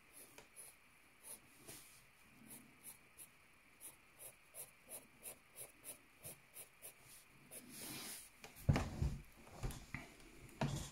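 Graphite pencil scratching on paper in short repeated shading strokes, about two to three a second. Near the end comes a louder rush of noise with a low thump.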